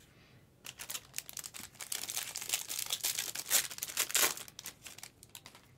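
Plastic trading-card pack wrapper crinkling and tearing as it is opened and handled: a dense run of crackles and small clicks from about half a second in until just before the end, loudest a little after the middle.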